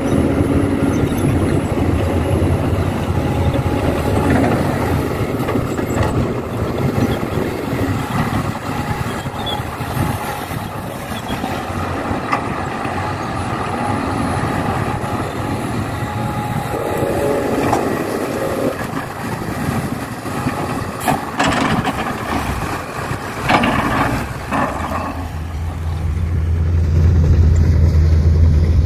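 Heavy diesel machinery at work: the engines of an excavator loading a dump truck running steadily. A few sharp knocks come about three-quarters of the way in, and a deeper engine hum grows louder near the end.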